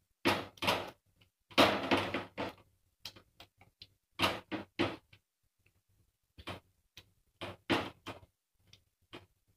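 Silicone spatula scraping and pushing crumbled paneer around a pan as it is roasted, in irregular strokes. The longest and loudest scrape comes about one and a half seconds in.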